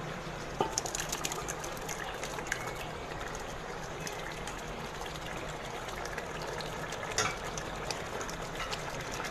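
Thick spinach purée sliding and slopping from a tipped metal pot into a pot of simmering chicken curry, with short clicks and knocks of metal over a steady hiss.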